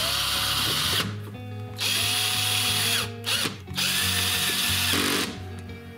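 Power drill-driver driving small Phillips pan-head screws into a metal plate, in three runs of about a second each and one brief burst. The motor's pitch rises and then holds at the start of each run. Background music plays underneath.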